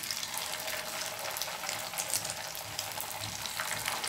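Potato vadas deep-frying in hot oil in a shallow pan, a dense, steady crackling sizzle as the freshly dropped dough cooks.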